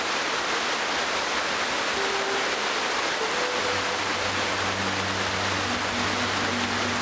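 Waterfall's steady rushing spray. From about two seconds in, soft music with long held notes and a low sustained bass comes in over it.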